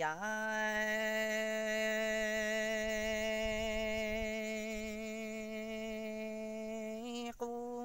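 A single voice singing Hmong kwv txhiaj sung poetry, unaccompanied. It holds one long, steady note for about seven seconds, then sings a few short notes near the end.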